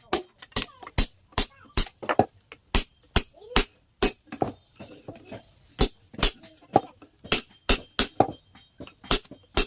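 Hammer blows on metal being forged, sharp ringing strikes coming in a steady rhythm of about two to three a second, with a pause of about a second and a half near the middle.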